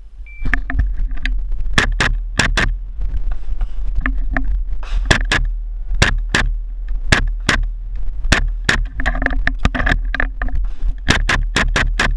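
A shot timer's short start beep, then rapid pistol fire through an IPSC course of fire: dozens of loud shots, many in quick pairs, in strings with short gaps between them.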